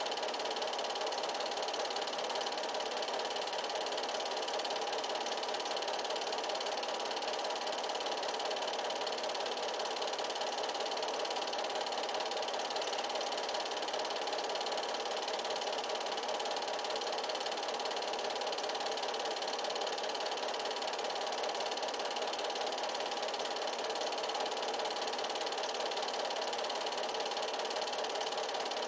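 A film projector running, a steady mechanical whir and rattle that does not change.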